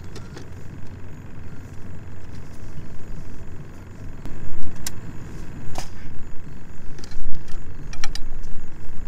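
Wind buffeting the microphone, a loud uneven low rumble that surges about halfway through. A few sharp clicks and clacks of fishing gear come through it as a landing net and rod sections are handled at a cart.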